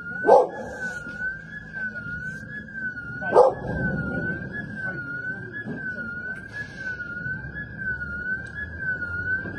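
An electronic alarm siren sounding a steady, fast warble, about two wobbles a second. Two loud, sharp sounds cut through it, one right at the start and another about three seconds in.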